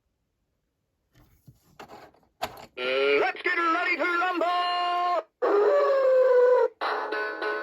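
Silence, then a few faint clicks, then a voice wailing in long, wavering held notes. Music with steady sustained notes comes in near the end.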